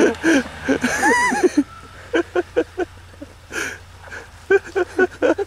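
Onlookers' voices chattering and exclaiming, with a drawn-out vocal 'ooh' that rises and falls about a second in. Underneath runs the low, steady hum of the off-road SUV's engine as it works up the muddy forest track.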